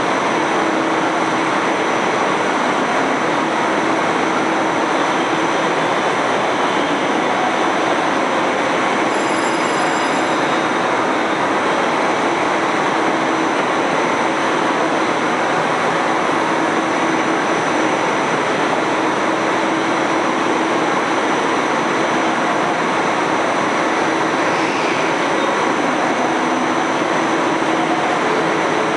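JR Hokkaido 789 series 1000 electric train standing at the platform with its on-board auxiliary equipment and blowers running: a constant rush of noise with a steady low hum and a faint high whine.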